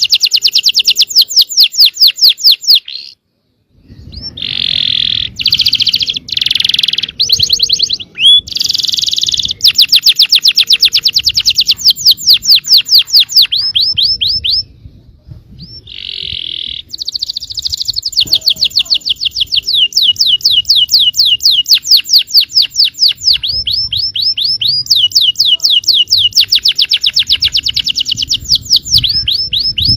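Yellow canary singing: long fast trills of repeated falling notes, broken by buzzier rolling phrases. The song pauses briefly about three seconds in and again halfway through.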